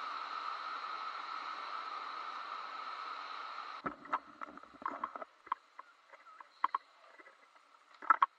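Hurricane wind and surf, a steady rush heard through a waterproof camera housing, which cuts off abruptly about four seconds in. Then a scattering of sharp clicks and knocks from hands handling the camera in its plastic case.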